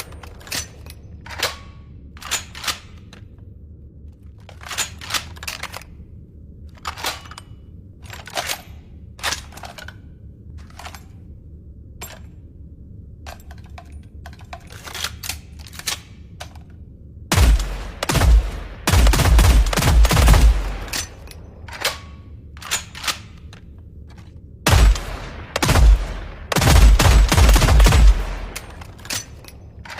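Fieldmaster HR-10 rifle firing: scattered single shots, then a long burst of rapid fire a little past the middle and another near the end.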